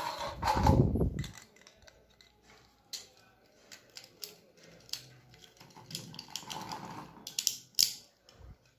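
Plastic Beyblade parts of a Valtryek V2 being handled and clicked back together after a burst. A louder knock and rub in the first second as the pieces are picked up off the tabletop, then scattered small clicks, bunched near the end.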